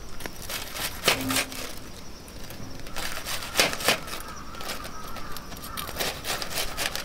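Kitchen knife crunching through crisp panko-breaded fried cutlets on a cutting board: a string of short, crackly cuts.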